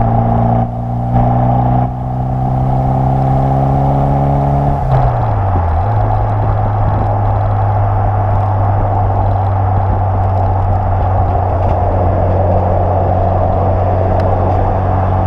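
Exhaust of a Renault Twingo GT's F4RT turbocharged four-cylinder engine under way: the note climbs steadily for about five seconds, falls away over a second, then holds an even drone at steady speed.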